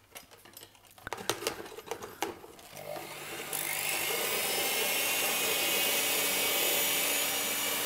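A few clicks and knocks, then about three seconds in a Siemens electric hand mixer starts and runs steadily with a whir, its beaters whipping cream in a plastic bowl.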